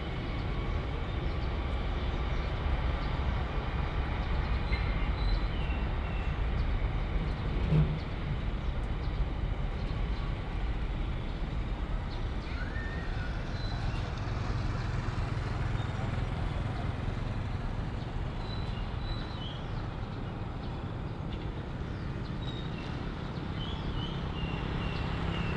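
Airbus A330-300 freighter's Rolls-Royce Trent 700 jet engines at takeoff power during the takeoff roll: a steady low rumble, with a brief thump about eight seconds in.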